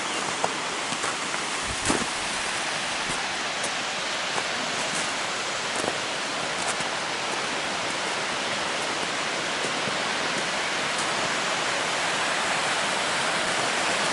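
Suuçtu Waterfall's water falling about 38 metres, a steady rushing hiss, with a brief knock about two seconds in.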